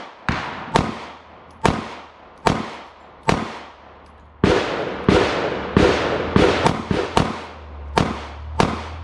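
A string of about fourteen pistol shots, each trailing off in echo. They come about a second apart at first, then faster and more irregularly from about four and a half seconds in.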